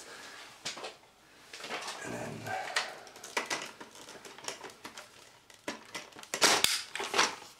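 Hard plastic clicks and knocks of Dyson V6 Absolute attachments being handled and snapped onto and off the wand, with the vacuum switched off. A quick run of louder clicks comes near the end.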